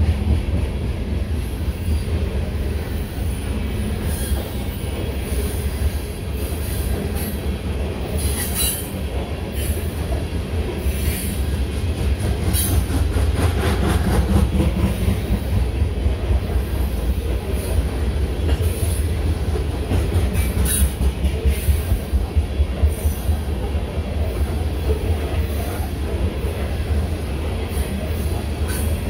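Freight train of open-top hopper cars rolling past: a steady low rumble of steel wheels on rail, with brief high-pitched wheel squeals now and then and a run of quick rhythmic wheel clacks about two-thirds of the way through.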